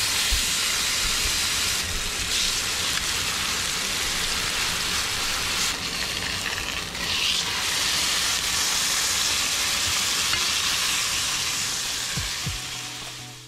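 Bluefish fillets searing in hot oil in a nonstick frying pan: a loud, steady sizzle that fades away near the end.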